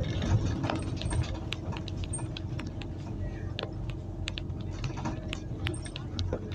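City bus engine running steadily, heard from aboard the moving bus, with many light irregular clicks and rattles over the hum.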